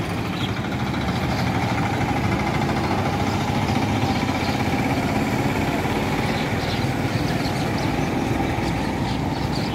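Steady road traffic noise: vehicle engines running as cars and other vehicles pass and wait.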